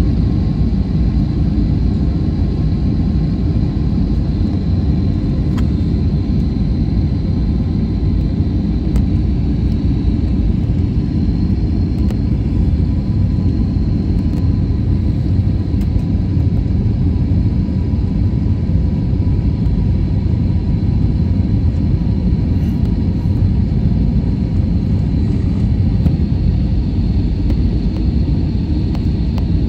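Passenger airliner cabin noise in flight: a steady, loud rumble of the engines and rushing air, with a faint high whine held on top.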